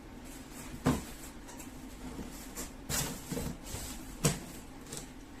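Handling sounds as things are put back in place: three sharp knocks, about a second in, near three seconds and just past four seconds, with softer scuffs and rustles between them.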